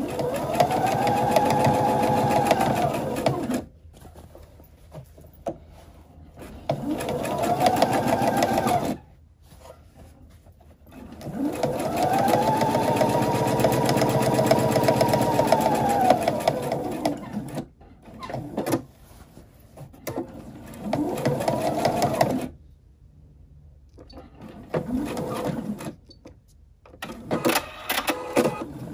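Computerized sewing machine stitching in stop-and-go runs: four longer runs and a few short ones near the end, each speeding up and then slowing down, with short pauses between them as the fabric is turned around a tight curve.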